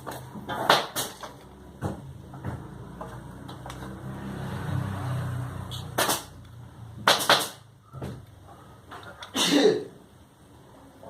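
Scattered sharp knocks and clicks of sewing machine parts and tools being handled, with a low hum swelling and fading in the middle.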